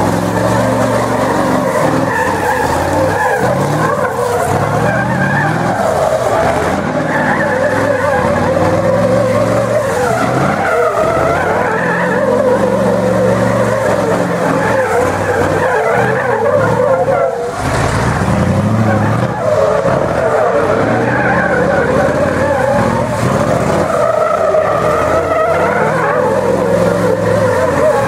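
Mercedes-Benz racing truck drifting in circles: its diesel engine revs hard and rises and falls while the rear tyres skid and squeal.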